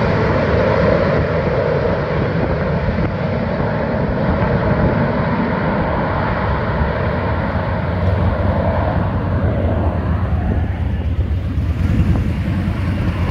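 Marine AV-8B Harrier jump jet hovering, its Pegasus turbofan giving a loud, steady jet noise. The sound grows duller in the second half.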